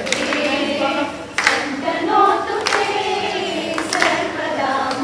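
A group of women singing together in chorus, a few brief sharp sounds cutting through now and then.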